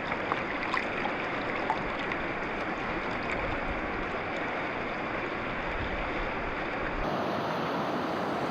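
Clear stream flowing: a steady rush of running water.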